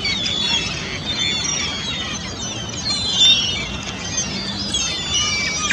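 Many overlapping short, high squealing calls from a flock of young herring gulls, busiest a little past the middle, over a steady low background rumble.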